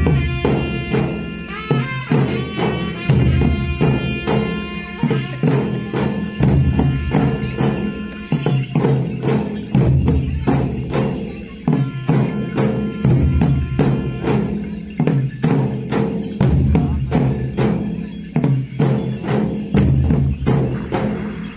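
Live village drumming: several barrel drums played with sticks in a fast, driving rhythm with jingling percussion. A pipe holds long high notes over the drums for the first several seconds, then the drums carry on alone.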